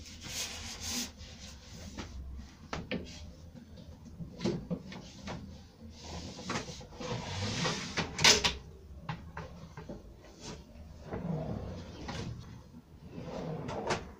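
A drawer being set onto extended under-mount soft-close metal runners and slid in: runners sliding and rattling with a string of clicks and knocks, the loudest knock coming straight after a long slide about eight seconds in.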